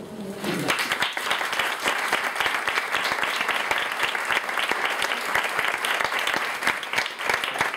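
Small audience applauding, the clapping starting about a second in and going on steadily.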